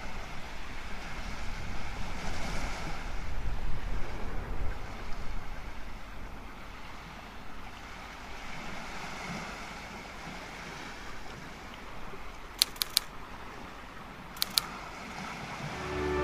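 Outdoor coastal ambience: a steady hiss with a low wind rumble, heaviest in the first few seconds. A few sharp clicks come near the end.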